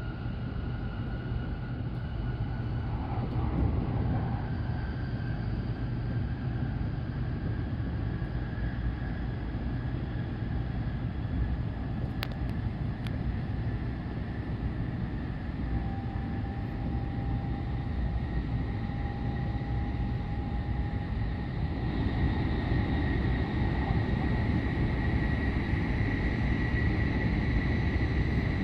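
Cabin noise inside an N700S Shinkansen train running at speed: a steady rumble with a faint high whine that slowly rises in pitch. It grows louder about 22 seconds in as the train enters a tunnel.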